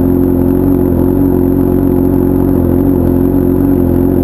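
Honda Hornet motorcycle with a 3-inch aftermarket exhaust running at a steady speed, its inline-four exhaust note held as a loud, even, high-pitched scream.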